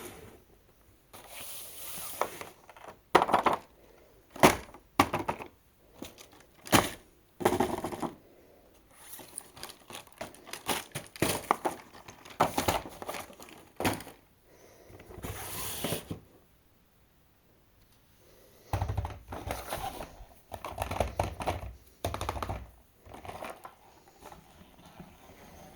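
Toy cars and their plastic packaging being handled during an unboxing: crinkling and sharp clicks and knocks in irregular bursts, with a short pause about two thirds of the way in.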